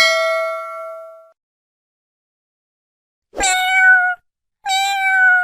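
A bell-like ding rings out and fades over about a second, then a cat meows twice, two short calls a little over a second apart.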